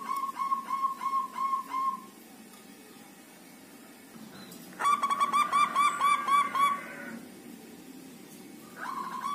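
Zebra dove (perkutut) cooing in phrases of short, rapidly repeated rolling notes. One phrase comes at the start, a louder one about five seconds in, and another begins near the end.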